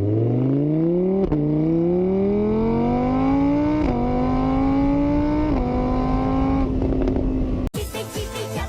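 Car engine accelerating up through the gears: its pitch climbs, drops back at each of three gear changes, then holds level. It cuts off suddenly near the end and music begins.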